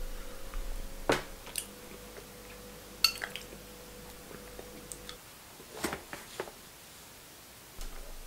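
Metal spoon clinking against white ceramic bowls while eating porridge, with chewing: about five sharp clinks, one of them ringing briefly. A faint steady hum stops about five seconds in.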